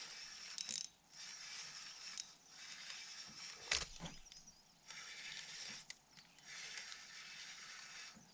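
Spinning fishing reel whirring in repeated spells of about a second as line is reeled in against a hooked lake trout, with one sharp knock midway.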